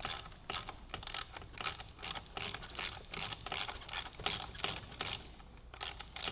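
Hand socket ratchet clicking rapidly and evenly, about three to four clicks a second, as it backs out the brake master cylinder bolts; the clicking breaks off briefly near the end, then resumes.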